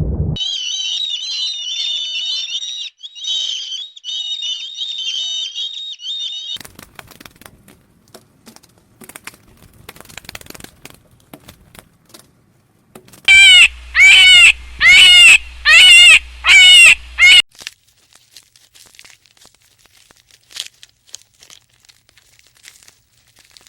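Animal calls: about six seconds of shrill, warbling chirping, then scattered clicks and rustling, then six loud calls in quick succession, each rising and falling in pitch, about a second apart.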